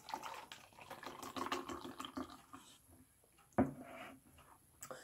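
Nitrogen-infused cola pouring from a can into a small glass for about two and a half seconds, then a single knock on the table about three and a half seconds in.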